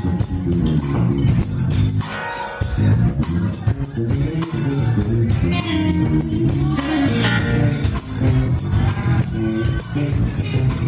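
Live band playing: electric guitar, bass, keyboard, drum kit and hand percussion, with a jingling tambourine-like sound on top.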